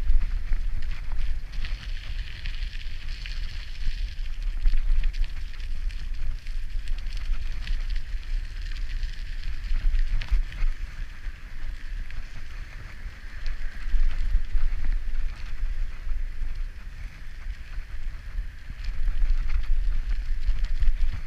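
Wind buffeting the microphone during a bicycle ride, a heavy uneven rumble, over the hiss of tyres rolling on a wet path and small clicks and rattles from the bike.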